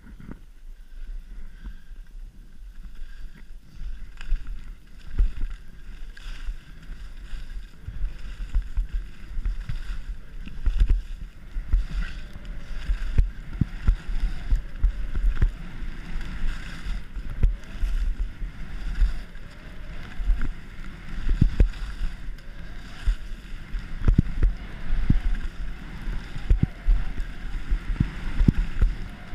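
Wind rushing over a body-worn camera's microphone while skiing downhill through fresh powder snow, with irregular low thumps and rumbles from the skis and turns. It starts quiet and builds over the first few seconds as speed picks up.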